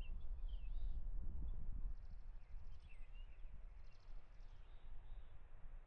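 Small birds chirping in short calls, with two brief buzzy trills, over a steady low rumble.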